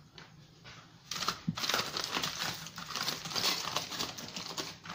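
Aluminium foil crinkling as a hand unwraps a crumpled foil parcel, starting about a second in and going on as a dense crackle.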